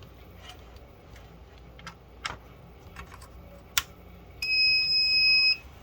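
A few light clicks of handling as the barrel plug goes in, then the Dahua HCVR7208A-V2 DVR's buzzer sounds one steady high beep of about a second as it powers up.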